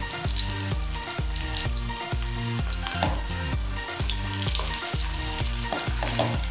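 Corn pakoda batter deep-frying in hot oil: a steady sizzle and bubbling as the fresh pieces fry, over background music.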